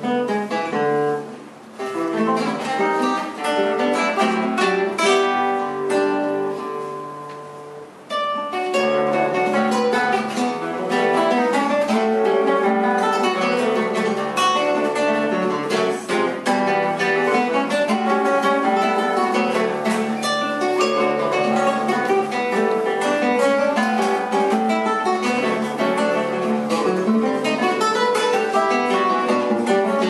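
Two nylon-string classical guitars playing a duet, plucked fingerstyle. The playing eases into a softer, thinner passage early on, then comes back fuller and louder about a quarter of the way through.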